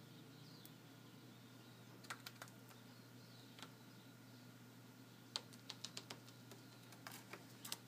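Faint sharp clicks and taps from a cockatiel moving about on a wooden desk and papers, scattered at first and then in quick clusters about five and seven seconds in, over a low steady room hum.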